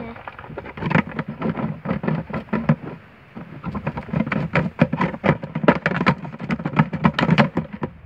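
A thin plastic bottle crackling and clicking as hands work it and push a PVC pipe into a hole in its side. The clicks come fast and irregularly, with a short lull about three seconds in.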